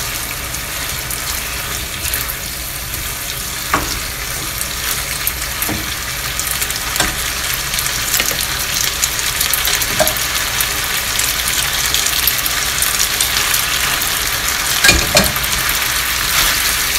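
Spaghetti sizzling in garlic olive oil and pasta water in a nonstick frying pan as it is stirred and tossed with a silicone spatula. There is a steady hiss with a few soft knocks of the spatula against the pan, the loudest two in quick succession near the end.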